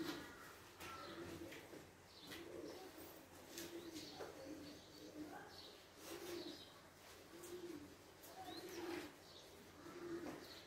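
Low cooing of a pigeon, short humming coos repeated about once a second, with a few higher chirps and the faint swish of a duster wiping a whiteboard.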